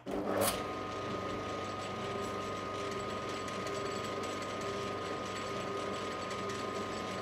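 Metal lathe switched on: a knock as it starts, then the motor and headstock gearing running steadily with a steady hum and whine.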